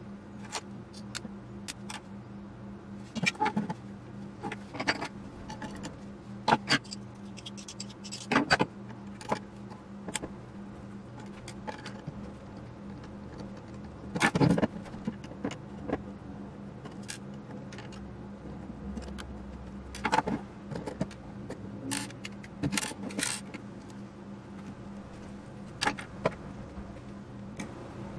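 Irregular small metallic clicks, taps and knocks as the metal frame and parts of a Smiths azimuth gyro unit are handled and worked on with a screwdriver during teardown, over a steady low hum.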